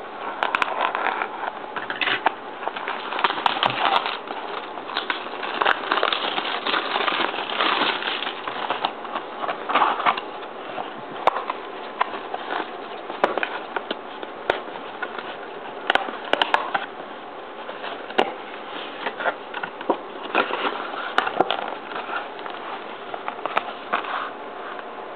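Plastic wrapping crackling and tearing, with irregular clicks and taps, as a sealed box of trading card packs is unwrapped and opened. The crackling is busiest in the first half.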